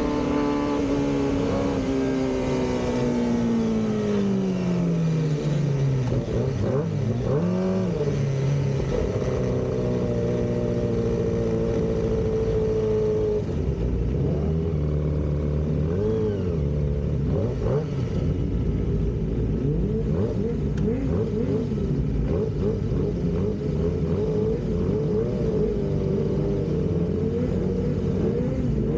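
Kawasaki ZX-25R's 250 cc inline-four engine heard from on the bike: its note falls steadily over the first few seconds as it rolls off the throttle, rises briefly, then runs at low revs with small throttle blips. In the second half other bikes' engines idle and rev around it, their notes wavering and overlapping.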